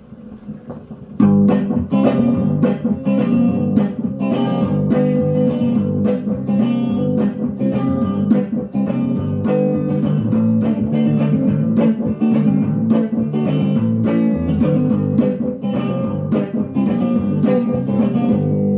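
Electric guitar playing a steady run of picked notes and chords, starting about a second in.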